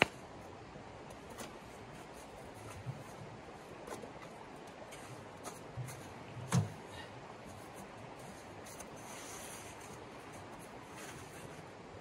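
Steady rush of a shallow river, with scattered knocks and clunks of camp gear being handled. The loudest is a single metal clunk about six and a half seconds in, as a small sheet-metal wood stove is set in place.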